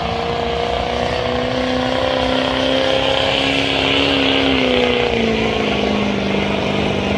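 Diesel pickup truck engine at full throttle, pulling a weight-transfer sled and running steady and hard. Its pitch rises slightly, then sags to a lower, steady note about two-thirds through as the sled's load builds.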